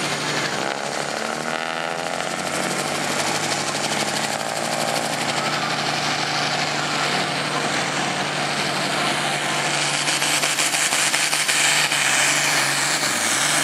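Vintage tractor engine running hard under heavy load as it pulls a weight-transfer sled. The engine sound grows louder and brighter about ten seconds in.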